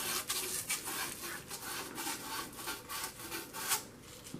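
Sandcloth rubbing on the end of a copper pipe in quick back-and-forth strokes, scouring the cut end clean and bright before it is fluxed for soldering.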